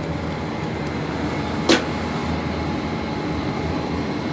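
Gas brazing torch flame running with a steady rushing hiss while a cracked copper AC pipe is brazed. A single sharp click about 1.7 s in.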